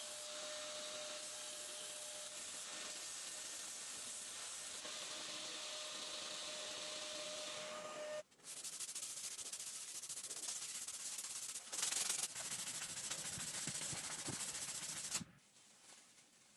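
A steel blade being sanded on a power abrasive: a steady hiss with a motor whine. About eight seconds in it breaks off, then comes back as a coarser, rapidly pulsing sanding that stops near the end.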